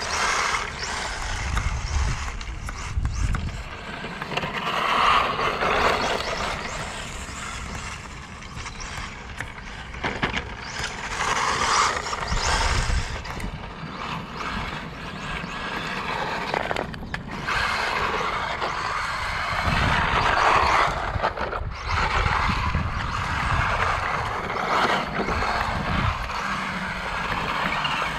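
Kyosho Fazer VE-X 1:10 electric RC car driving over wet, gritty asphalt and gravel. Its motor and tyre noise swell and fade several times as it accelerates and passes.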